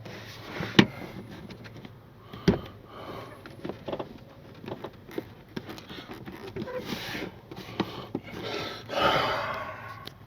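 Scattered clicks and knocks of plastic car interior trim panels being handled and fitted, with a couple of louder knocks. There are breathy sniffs or breaths about seven and nine seconds in.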